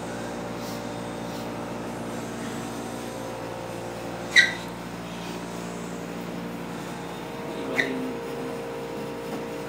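Steady indoor mechanical hum made up of several steady tones, like air-conditioning or other machinery room tone. A short, sharp high-pitched sound cuts in about four and a half seconds in, and a fainter one comes near the eighth second.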